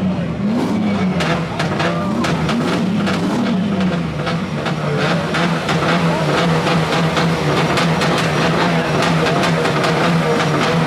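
Car engine revving up and down several times, then held at steady high revs, with a dense crackling over it.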